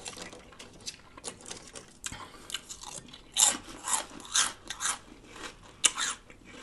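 Close-miked chewing of crunchy food, lettuce-wrapped sub sandwich, with a run of crisp crunches that is loudest from about halfway through.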